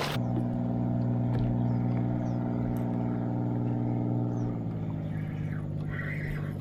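Boat motor running with a steady low hum. It shifts and eases slightly about four and a half seconds in.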